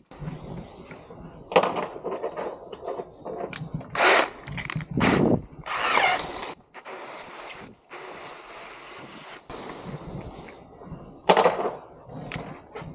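Tool work on a steel storage cage: a series of sharp metal clanks and knocks, some leaving a brief high ring, with a short drill-like whir that falls in pitch about six seconds in.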